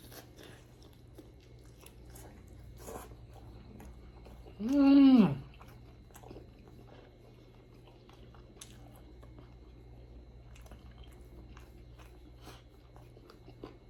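Close-up mouth sounds of a person biting and chewing a chicken wing: faint wet clicks and crunches. About five seconds in comes one loud, short hummed 'mmm' whose pitch drops at the end.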